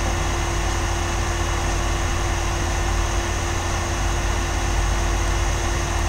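Steady running drone of air-handling fan machinery: an even rush of air with a constant hum tone over a low rumble.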